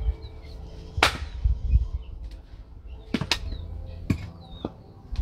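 Firewood being split by hand: sharp chops of a blade into a log, the loudest about a second in, then a quick pair and two more a little later. Birds chirp in the background.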